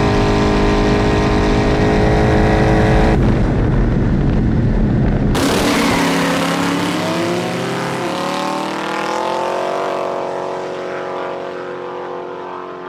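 Turbocharged drag-car engines, a twin-turbo LS V8 HR Holden and a 1JZ Foxbody, held at a steady high rev on the two-step at the line. About five seconds in they launch at full throttle, revs climbing through wheelspin, then fade as the cars pull away down the strip.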